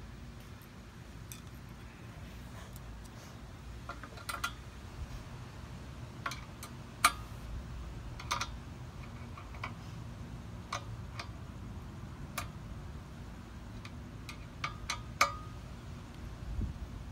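Irregular sharp clicks and clinks of a hand screwdriver and screws against a steel bracket as an evap canister is screwed onto it, over a low steady background rumble.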